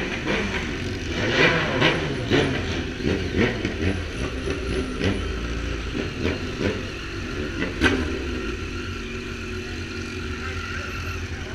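Several motorcycle engines idling, with short revs, as a group of bikes pulls away in an enclosed fuel-station forecourt.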